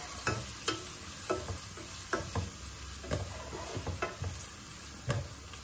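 Wooden spatula stirring sliced onions frying in coconut oil in a non-stick pot, with a light sizzle and irregular knocks and rattles about every half second. The pot is not sitting level on the burner and rattles as it is stirred.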